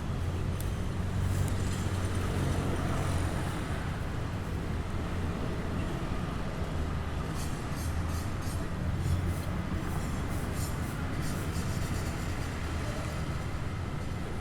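City street traffic: the steady low rumble of vehicle engines running and passing, with a run of light high clicks or rattles about halfway through.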